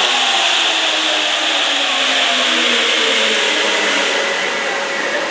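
Rubber-tyred Sapporo subway train pulling into the station: a loud, steady hiss of the tyres on the guideway, with tones under it falling slowly in pitch as the train slows.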